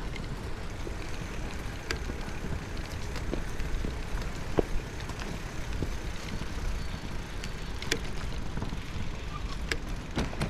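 Bicycle riding along city streets: a steady rumble of tyres and air on the action camera's microphone, with short sharp ticks and rattles scattered through it.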